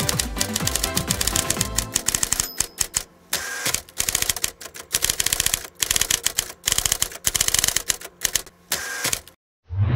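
Typewriter-style key-click sound effect in rapid runs with short pauses, over background music that fades out about two to three seconds in. Near the end the clicks stop, and after a brief gap there is one deep thud.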